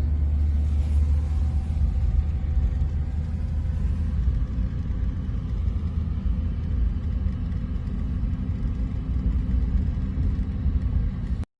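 Hurricane-force wind blowing hard, a steady low rumble with heavy wind buffeting on the microphone, ending suddenly near the end.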